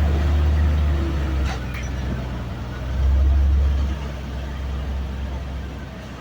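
Heavy vehicle's engine rumbling low and steady, swelling twice, about a second and a half in and again around three seconds, then easing off near the end.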